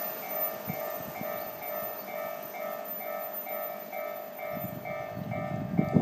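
Japanese level-crossing warning bell ringing, a steady two-tone ding about twice a second. From about four and a half seconds in, the low rumble of an approaching train joins it and grows.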